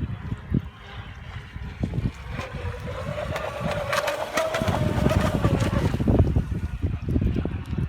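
Brushless electric motor of an RC model boat whining as the boat runs on the water, the whine coming in a little over two seconds in and dying away near six seconds. Wind buffets the microphone throughout, heaviest in the second half.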